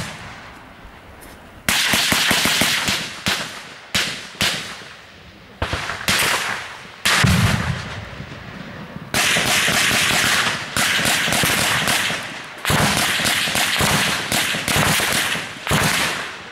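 Bursts of small-arms automatic gunfire in a firefight, about ten in all, coming every one to two seconds. Each burst trails off in echo, and one near the middle runs for about a second and a half.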